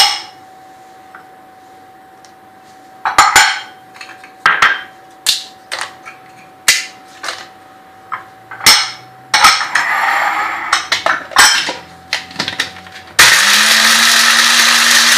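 Knocks and clinks of whole spices and a grinder jar being handled, then near the end an electric spice grinder switches on, its motor rising quickly in pitch to a steady loud whir as it grinds the whole spices for garam masala.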